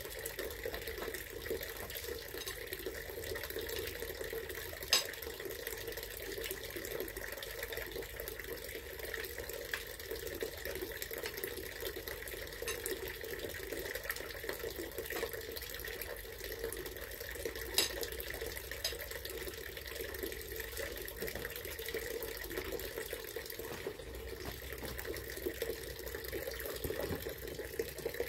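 Steady trickle of running water, with two sharp clinks of cutlery on a plate, one about five seconds in and another past the middle.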